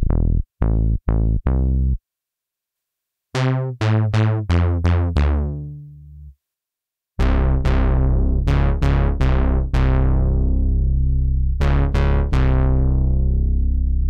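U-he Zebra 2 software synthesizer playing factory bass presets one after another. A run of short bass notes stops about two seconds in. After a short gap a second patch plays a quick group of notes that fades out, and after another gap a third patch plays notes that ring on and overlap.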